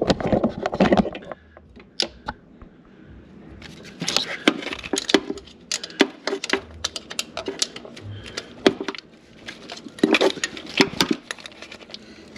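A wrench working the 10 mm mounting nut and bolt of a Jeep Cherokee XJ's ignition coil: bursts of sharp metallic clicks and clinks, about four seconds in and again near ten seconds, with scattered ticks between, as the hard-to-reach fastener is worked loose.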